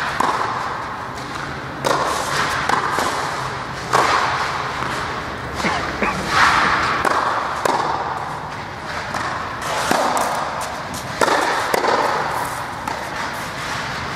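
Tennis balls being struck by rackets and bouncing on a clay court during a rally. It is a string of sharp hits about one every second or two, each echoing briefly in a large hall.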